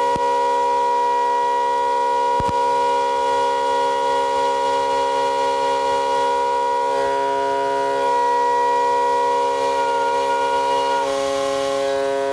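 Midmer-Losh pipe organ sounding a loud held chord: the seventh-sounding rank of an eight-rank cymbal mixture played against the gamba tuning stop, heard from inside the swell chamber among the pipes. The tones hold steady; about a second before the end one higher tone wavers and drops out and the chord shifts.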